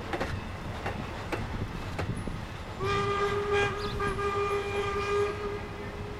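Steam locomotive whistle, from Strasburg Rail Road 4-8-0 No. 475, blowing one long steady blast of about two and a half seconds starting about three seconds in. Before it, a few clicks of the cars' wheels passing over rail joints as the train rolls by.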